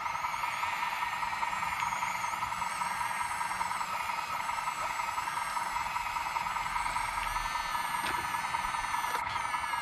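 Small electric motor of a scale model construction machine running at constant speed with a steady whine.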